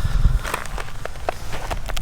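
Footsteps in snow, several short steps in a row.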